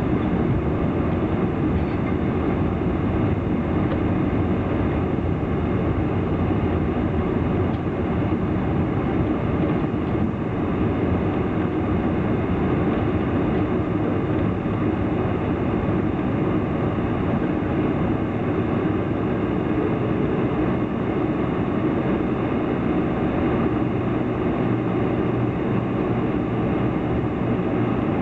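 Steady cabin noise of a Boeing 747 taxiing, heard from inside the passenger cabin. Its four engines run at low taxi power over the rumble of the rolling undercarriage, at an even level throughout with no spool-up.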